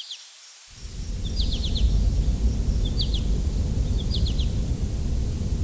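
Outdoor ambience: a low rumble like wind swells in after about a second, while a bird repeats a short chirping phrase of three or four quick notes roughly every second and a half.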